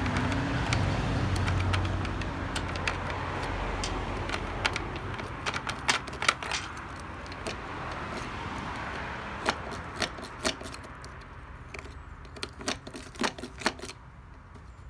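A key ring jangling and a key clicking irregularly in and out of a Kawasaki Z1000's sticky ignition lock, as the key is used to push lubricant powder into the keyway.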